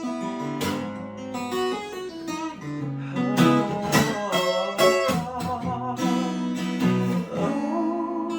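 Acoustic guitar played with strummed chords and picked notes in an instrumental break of a pop song, with no singing.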